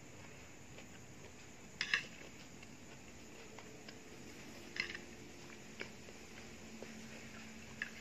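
Metal cutlery clicking and scraping against a plastic plate while eating: a quick double click about two seconds in, then single clicks a few seconds apart.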